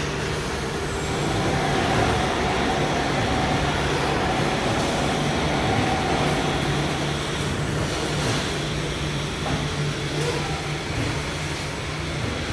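Steady industrial machine noise from a laser-welding line for catalytic converter parts: a constant low hum under an even rushing noise.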